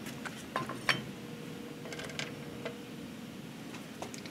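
A few light clicks and knocks as a factory GM connecting rod is set into a rod-balancing fixture on a digital scale. The loudest comes just under a second in, over a steady low hum.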